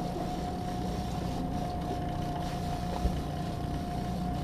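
Boat's outboard motor running steadily at low speed: a low hum with a thin, steady whine over it, and one light knock about three seconds in.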